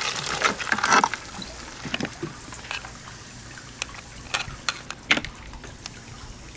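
Hands cleaning a blue crab: water splashing for about the first second, then scattered sharp clicks and cracks as the shell is pried and pulled apart.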